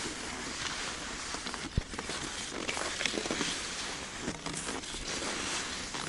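Cross-country skis gliding and crunching over frozen snow: a steady hiss with irregular small crunches and squeaks, and a sharper knock a little under two seconds in.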